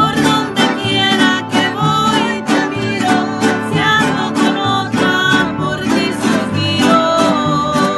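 Live acoustic folk song: women singing over a steadily strummed acoustic guitar and a smaller strummed string instrument.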